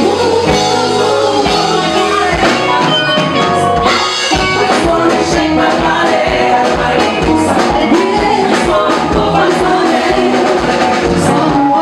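A woman singing over a band: drum kit keeping a steady beat, with electric guitars.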